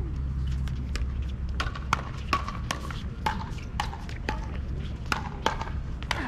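Pickleball paddles striking a plastic pickleball in a fast exchange of soft dinks at the net: sharp hits about twice a second, a couple of them louder.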